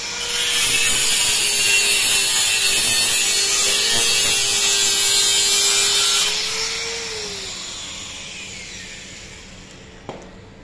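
Electric angle grinder grinding into metal for about six seconds, its motor whine dropping slightly under the load, then lifted off and spinning down.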